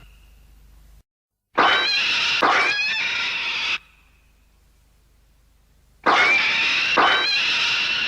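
Gezora kaiju monster roar sound effect, played twice: each call is a harsh, screeching cry about two seconds long that opens with two sharp rasping pulses and carries a wavering pitch that bends up and down. The first starts about a second and a half in, the second about six seconds in.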